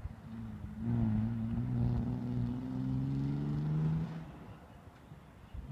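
Bilcross car engine running under load, its note holding steady with a slight rise for about three seconds, then fading away.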